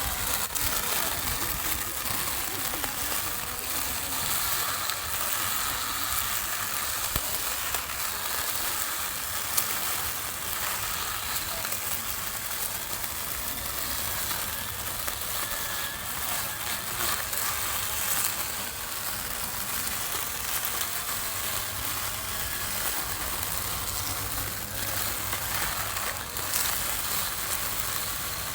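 Small lawn mower running and cutting grass: a steady hiss with a faint motor whine underneath.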